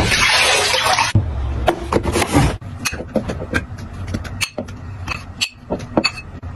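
About a second of hiss, then a run of irregular light taps and scrapes as watermelon chunks are spooned from a bowl into a plastic portable-blender cup.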